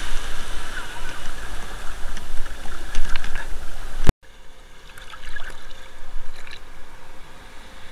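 Shallow surf washing in and water splashing around a person's legs as they wade, a loud, rushing noise. About four seconds in there is a sharp click, and the water sound goes on more quietly after it.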